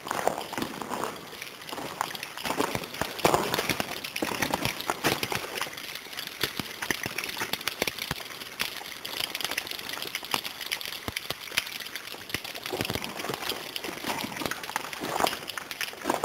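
Footsteps crunching and scuffing over the stony tunnel floor, with scattered crackling clicks throughout.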